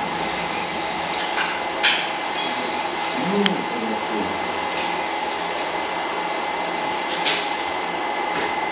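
Videojet laser marking system engraving a black plastic fuse-box lid: a steady machine hiss with a faint steady hum, and a few soft knocks, the sharpest about three and a half seconds in.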